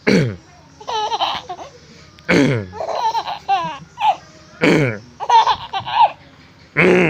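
A man gives four short, harsh coughs about two seconds apart, and after each one a baby breaks into high-pitched giggling laughter.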